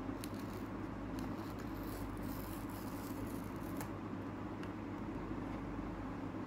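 Faint crackling and ticking of a paper seal sticker being peeled off a smartphone box and the box being handled, thickest over a couple of seconds in the middle, over a steady low hum.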